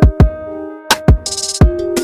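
Background music with an electronic beat: deep kick drums and a short burst of hissy percussion over held pitched notes.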